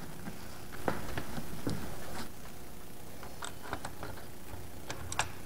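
Scattered light clicks and taps of small metal hardware being handled: a bolt and washers knocking against a metal strut bracket as they are fitted, with a few quick clicks near the end.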